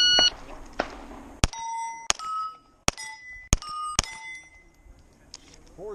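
A shot timer beeps once, then a pistol fires five shots about half a second to a second apart, each shot followed by the ringing of a steel plate being hit.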